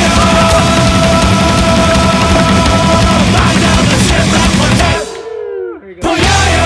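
Loud, hard-driving rock music with distorted guitar, breaking off about five seconds in for a moment of sliding effect tones, then starting again about a second later.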